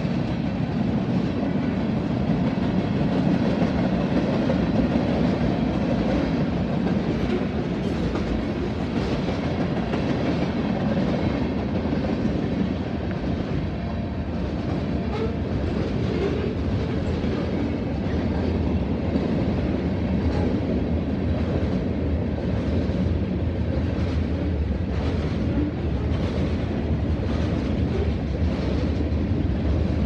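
Freight train cars rolling steadily past: a continuous rumble of steel wheels on the rails, with faint repeated clicks.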